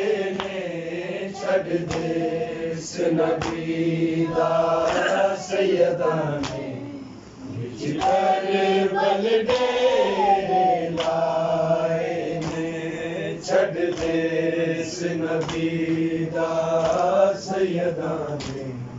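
A group of men chanting a Punjabi noha (Shia lament) in unison with no instruments, their sung lines rising and falling, with chest-beating (matam) thumps landing at a slow, regular beat of about one every second and a half.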